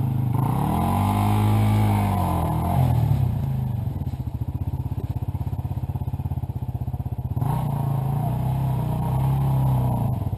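Off-road motorcycle engines: one is revved up and back down twice, near the start and again about seven and a half seconds in, and between the revs an engine idles with a fast, even beat.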